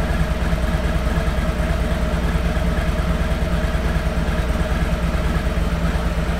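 Harley-Davidson Road Glide's Milwaukee-Eight V-twin idling steadily.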